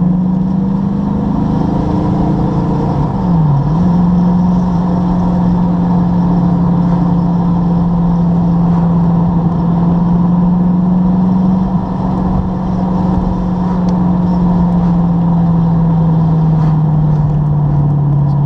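TVR sports car's engine pulling steadily, heard from inside the cabin over tyre and road noise. Its note dips sharply and recovers about three seconds in, and sinks slowly near the end.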